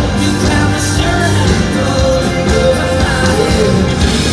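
A live rock band playing loud amplified music: electric guitars, bass and drums, with a pitched lead line wavering above them.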